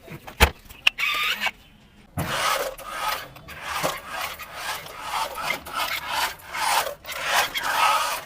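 Toy RC stunt car running: a rasping, scrubbing noise from its small electric drive and wheels that surges up and down in uneven bursts, after a couple of sharp clicks.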